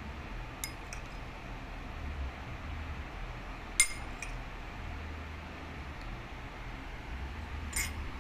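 Light clinks of glassware: a couple of small taps about a second in, a sharp ringing clink about four seconds in and a softer one near the end, over a steady low hum.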